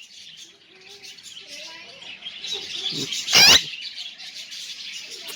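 A pet parrot gives one loud, harsh call about three seconds in, over steady high-pitched chirping of birds in the background.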